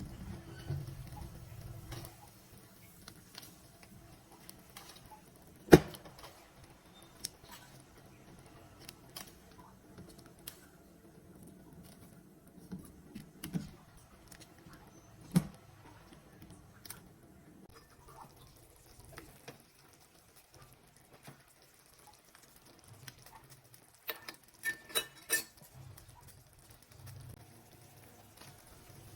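Sparse clicks and knocks of cooking work, with two sharp knocks about six and fifteen seconds in and a quick run of clicks near the end.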